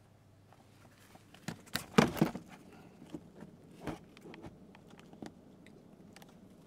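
Handling noise from a camera being picked up and set back in place: a cluster of knocks and rustles about two seconds in, another knock near four seconds, then scattered small clicks.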